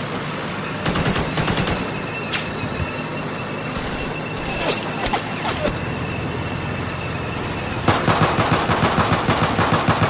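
Automatic gunfire: a short burst about a second in, a few scattered shots, then a long rapid burst near the end.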